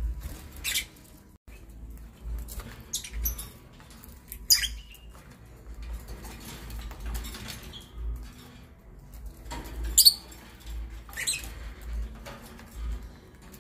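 Lovebirds giving several short, shrill, high chirps, the loudest about four and ten seconds in, over soft scuffling of feet and wings on the wooden nest box.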